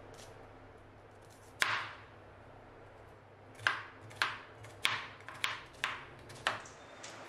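Printed ceramic knife chopping onion on a wooden chopping board: one sharp knock, then a quick run of six more chops about half a second apart in the second half.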